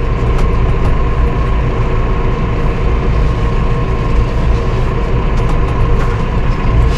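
Massey Ferguson 5S.145 tractor's four-cylinder diesel engine running steadily as the tractor drives slowly forward, heard from inside the cab: a low rumble with a steady whine over it.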